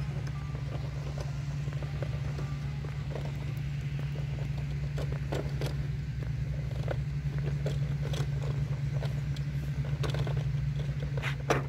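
Outdoor ambience picked up by a handheld camera while walking along a park path. There is a steady low rumble, with scattered light clicks and scrapes that come more often in the second half.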